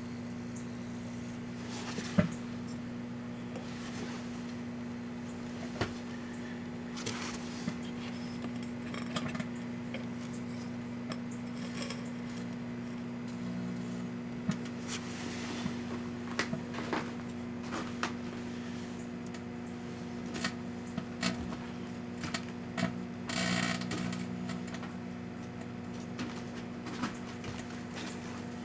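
Microwave oven running with a steady electrical hum while a toner cartridge inside crackles and pops in irregular sharp clicks as it heats and burns, with a louder burst of crackling about three-quarters of the way through.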